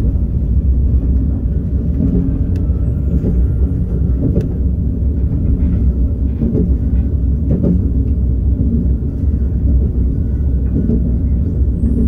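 KTX-Sancheon high-speed train running, heard inside the passenger car as a steady low rumble with a few faint clicks.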